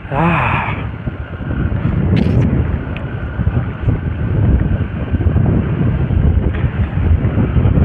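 Wind buffeting the microphone over the running single-cylinder engine of a Hero XPulse 200 4V motorcycle while riding along.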